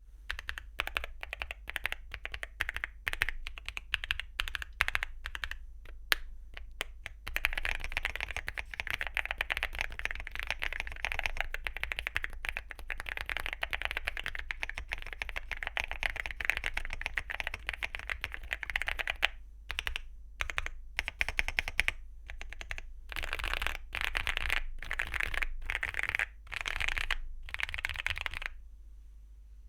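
Typing on a Weikav Lucky65 V2 mechanical keyboard with TTC Venus linear switches and Cherry-profile PBT keycaps. It starts with separate keystrokes, turns to fast continuous typing after about seven seconds, then a few single presses, then more fast bursts, and the typing stops shortly before the end.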